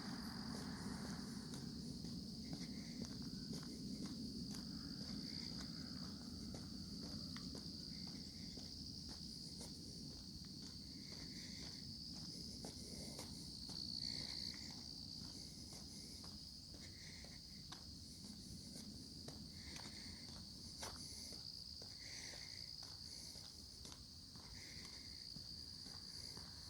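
Steady high-pitched insect chorus, with a lower call repeating every second or two, and footsteps walking along the lane.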